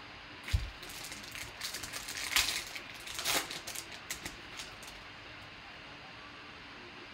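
Foil wrapper of a trading-card pack crinkling and tearing as it is ripped open by hand, after a light thump about half a second in. The crackling is loudest in the middle and stops about five seconds in.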